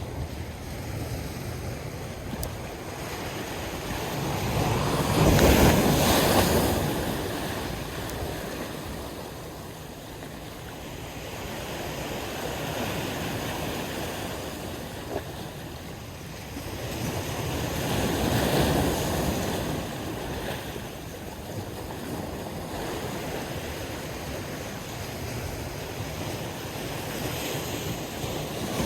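Wind and water noise by the shore, swelling louder about five seconds in and again around eighteen seconds.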